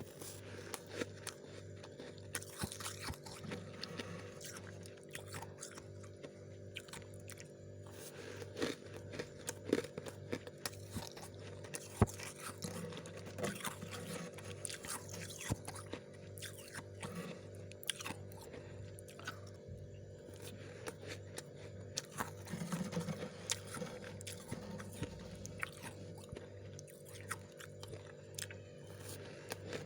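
Freezer frost being bitten and chewed close to the microphone: a dense run of crisp, irregular crunches and crackles, with a steady low hum underneath.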